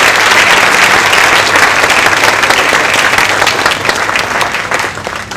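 Audience applauding: many hands clapping together in a dense, steady patter that begins to die down near the end.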